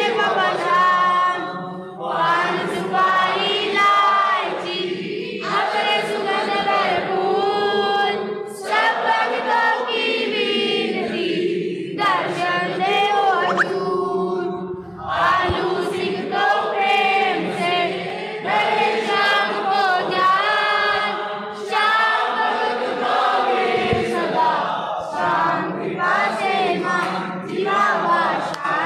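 A group of voices singing a Hindu devotional hymn together in chorus, in long phrases with short breaks between them.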